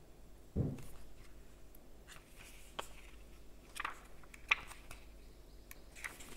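Pages of a small paperback guidebook being turned and handled: a soft thump about half a second in, then scattered light paper rustles and clicks.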